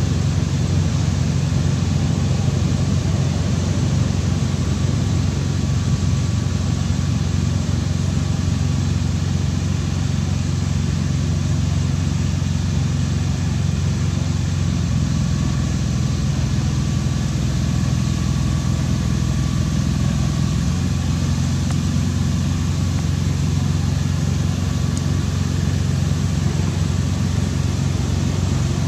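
An engine idling: a steady low hum that holds at one level and pitch throughout.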